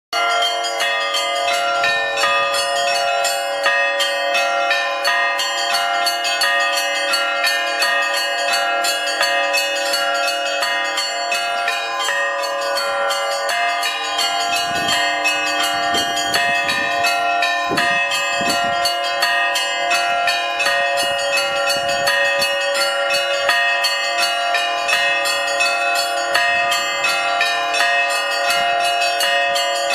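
Church bells ringing in a fast, continuous peal: several bells struck many times a second over lower bells that keep ringing underneath.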